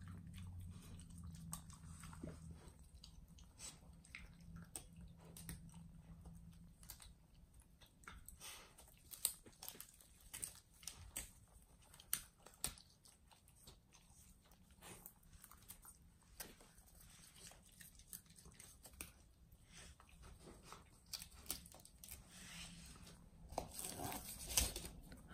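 A beagle and a lop-eared rabbit chewing fresh leafy greens: irregular crunching clicks throughout, busier and louder near the end.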